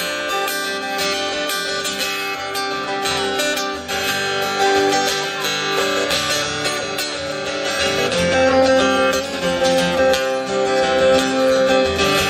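Two acoustic guitars playing an instrumental break between sung verses, with steady strummed chords.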